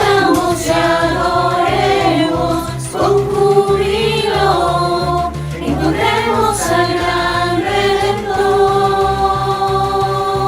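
Christian Christmas song: voices sing long held, gliding notes, without clear words, over a steady backing track.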